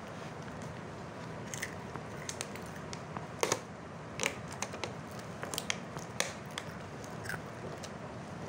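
Plastic wrapping and tissue paper crinkling as a boxed mug with a clear plastic window is handled, in scattered short crackles over a steady hiss.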